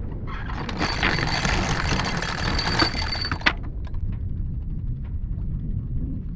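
A metallic rattling hiss with a few clinks lasts about three seconds from the start, over a steady low rumble of wind on the microphone.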